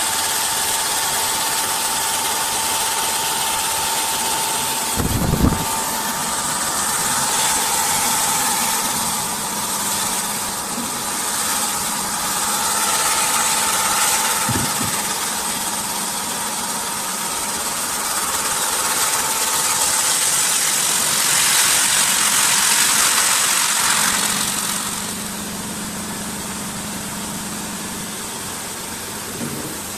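CNC wood lathe sanding a turned wooden spindle: electric motors running with a steady whine while an abrasive wheel rubs against the spinning wood. A short knock comes about five seconds in and another near fifteen seconds, and the sound turns quieter for the last few seconds.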